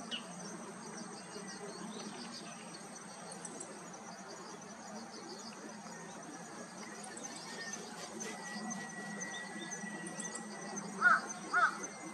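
Insects chirring faintly in high, pulsing tones over a steady outdoor hum. Near the end a crow caws loudly twice, the start of a run of caws about half a second apart.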